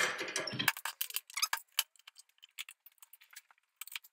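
Tools and small parts being handled on a wooden workbench: a brief louder handling sound at the start, then a run of irregular light clicks and rattles.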